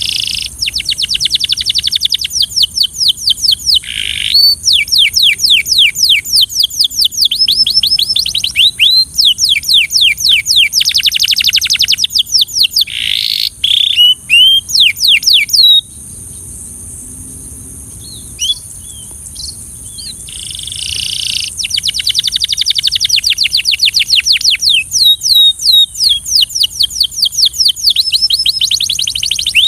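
Belgian canary singing: fast trills of rapidly repeated, downward-sweeping notes in phrases of a few seconds. A lull of a few seconds with only scattered single notes comes past the middle, then a long run of trills resumes.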